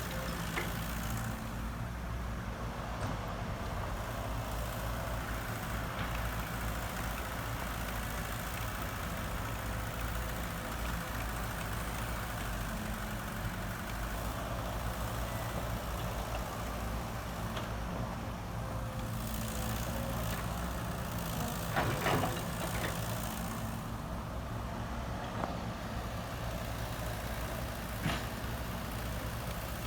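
Heavy diesel equipment engine running steadily, with a few sharp knocks, the loudest about 22 seconds in and again near 28 seconds.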